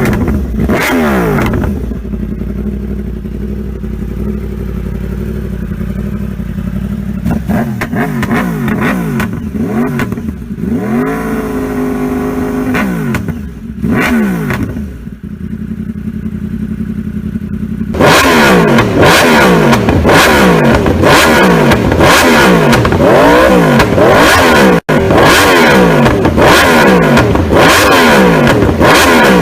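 Yamaha R1 inline-four engine with an aftermarket exhaust, revving again and again in quick rising-and-falling blips. About two-thirds of the way through it turns louder and sharper.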